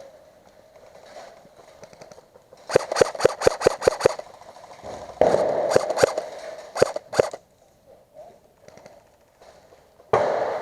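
Airsoft guns firing: a quick string of about eight shots, then a few single shots. About five seconds in and again near the end there is a louder bang that trails off over a couple of seconds.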